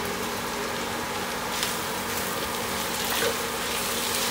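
Chicken and ground coconut masala sizzling steadily in a frying pan, with a couple of faint light clicks.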